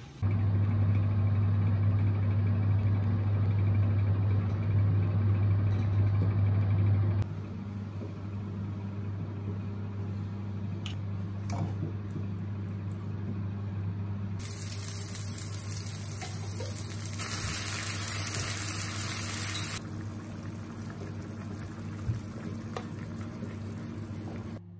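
A steady low hum runs throughout, loud for the first seven seconds and quieter after. Midway there are about five seconds of hissing from the frying pan on the gas stove, as the tomato sauce goes into the hot pan, with a few light clicks of a wooden spoon against the pan.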